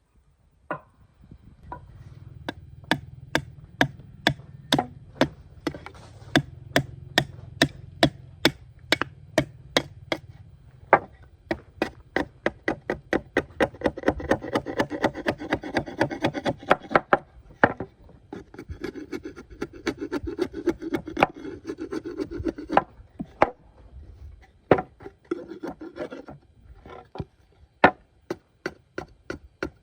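Hand tool working wood: a steady run of sharp strikes, about two to three a second, with rubbing and rasping between them.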